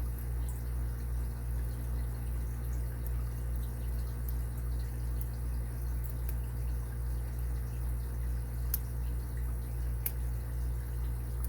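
Steady low hum with a few faint, sharp ticks of a lock pick working the pins inside an Abus 80Ti padlock.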